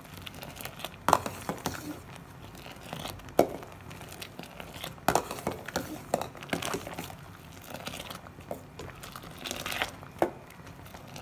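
Metal ladle stirring milk thickened with custard powder in a steel pot: irregular scrapes and clinks of the ladle against the pot's side and bottom. The stirring is quick, to keep the custard from forming lumps.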